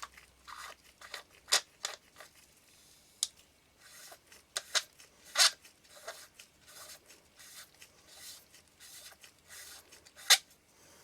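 Small lens parts being handled and fitted back into a camera lens barrel: a string of sharp clicks and taps with light scraping and rustling between them, the loudest click near the end.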